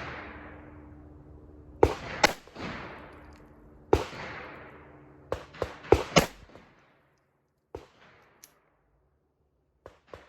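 Ruger LCP II .22 LR semi-automatic pistol firing CCI Stinger rounds: seven sharp shots at an uneven pace, several in quick succession, each trailing off in an echo. A few much fainter pops follow near the end.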